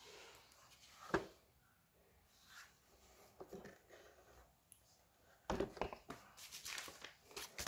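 Faint scattered clicks and rustles, with one sharp knock about a second in and a quick run of clicks and knocks near the end.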